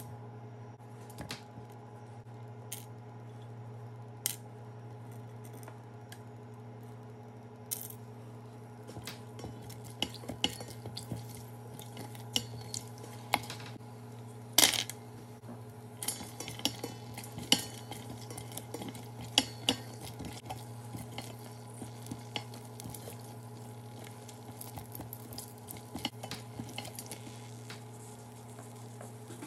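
Whole spices and cashews frying in a little oil in a stainless steel pot: faint sizzling, the small clatter of spices and nuts dropped in, and a silicone spatula stirring and tapping against the pot, with the loudest knock about halfway through. A steady low hum runs underneath.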